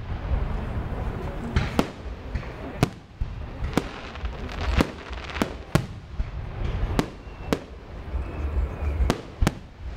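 Fireworks display: aerial shells bursting in a string of sharp bangs, about a dozen in ten seconds at uneven intervals, over a steady low rumble.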